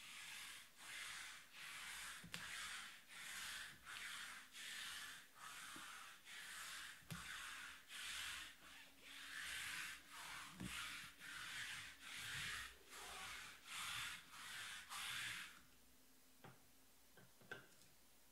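Rubbing strokes in a steady rhythm, about two a second, stopping about fifteen seconds in; a few faint clicks follow.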